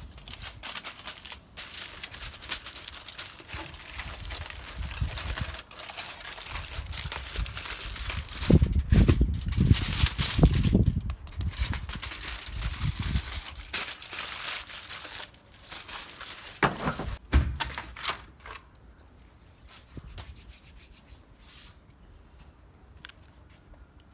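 Aluminium foil being peeled off a pot and crumpled, a dense crinkling and rustling that is heaviest about eight to eleven seconds in and dies away after about eighteen seconds.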